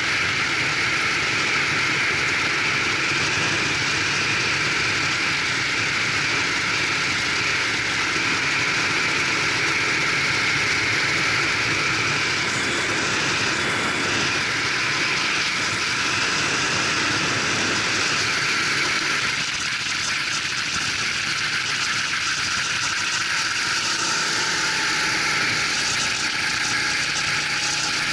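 Racing kart engine running on track, heard from the onboard camera and mixed with a steady rushing of wind on the microphone. The engine note changes as the kart slows hard for a corner and then speeds up again, with a clearer, rising engine tone in the last few seconds.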